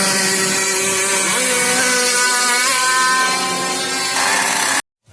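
Radio-controlled model boat's motor running at speed: a steady pitched buzz over a hiss, its pitch dipping and then rising a little. It cuts off abruptly near the end.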